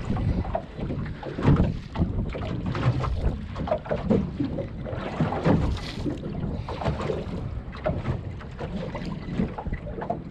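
Choppy sea water slapping irregularly against the hull of a small fiberglass boat, with wind buffeting the microphone.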